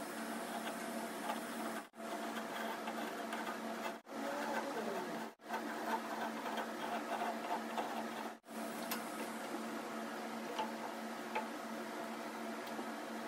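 Steady workshop machine hum with light scraping and clicking from a chisel paring into a mahogany blank. The sound cuts out briefly four times.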